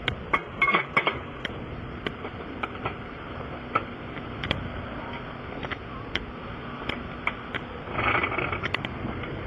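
Tools and equipment being handled for a tire repair: a string of irregular clicks, taps and small clanks, with a brief rustling scrape near the end.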